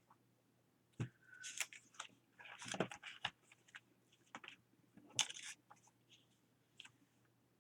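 Paper being handled for a collage: a series of short crinkles and rustles with a few light taps on the work surface, the busiest stretch about two and a half to three seconds in and another sharp rustle a little after five seconds.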